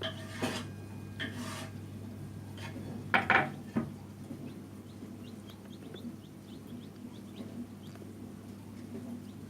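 Newly hatched chicks peeping faintly inside a homemade egg incubator over the steady hum of its fan. A short clatter comes about three seconds in, the loudest sound.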